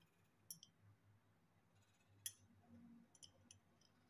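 Near silence, broken by a few faint, sharp clicks of chopsticks tapping against a glass plate.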